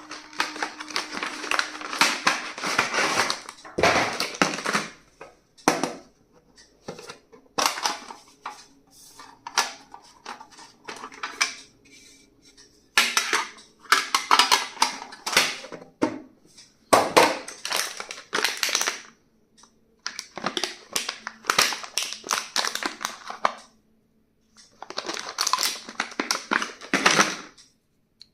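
Stationery and its packaging being handled and unwrapped: plastic crinkling and rustling with quick clicks and taps, in bursts of a few seconds separated by short pauses.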